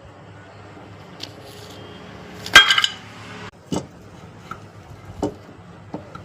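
Metal clinks and knocks, about five separate strikes with the loudest about two and a half seconds in, as tools and ceiling-fan parts are handled, over a low steady hum.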